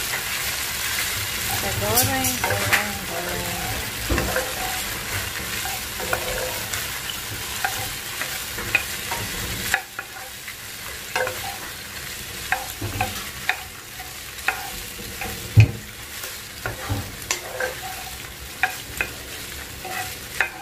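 Wooden spatula stir-frying boiled elbow macaroni in a non-stick pot: a steady frying sizzle with frequent light clicks and knocks of the spatula against the pan and pasta. The sizzle gets quieter just before halfway.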